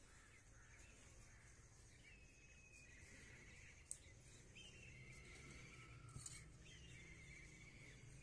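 Faint bird calls: short chirps and rapid trilled notes over a quiet outdoor background, with a single sharp click about four seconds in.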